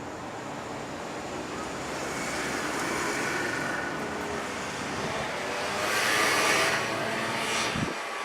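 Keikyu electric train running past, growing louder to a peak about six seconds in, with a whining tone that rises in pitch; a sharp knock near the end.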